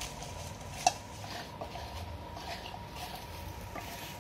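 A hand mixing masala- and flour-coated cauliflower florets in a stainless steel bowl: soft rustling and small clicks of the florets against the steel, with one sharp clink about a second in.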